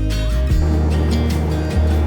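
Music with a heavy bass line; the bass pattern shifts into a fuller section about half a second in.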